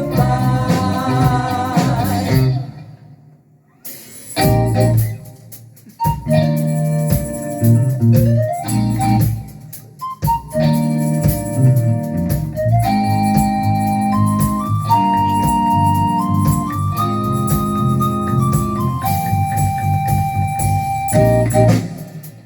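Jazz-funk instrumental music led by keyboards, with a bass line and a high keyboard melody; the music drops out briefly about three seconds in, then picks up again.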